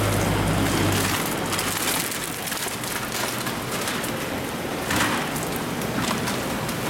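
Steady rushing splash of aerated water bubbling in live-fish tanks, with a brief louder rush about five seconds in. A low steady hum from the live-fish transport truck sounds under it for the first second, then stops.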